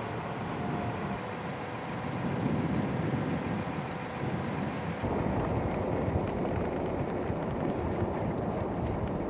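Vehicle driving on a snowy road, a steady rumble of engine and road noise mixed with wind on the microphone. The low rumble jumps louder abruptly about five seconds in.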